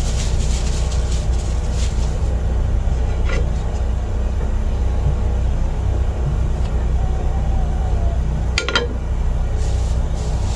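Gas stove burner on a high flame, a steady low rumble. A metal fork clinks against the frying pan about three seconds in and twice near the end, as butter is scraped off it into the pan.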